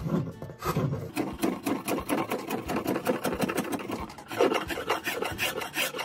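Metal spokeshave taking a fast series of short scraping cuts along the edge of a round wooden stool top, rounding the edge over. There is a brief lull about four seconds in as the grip changes.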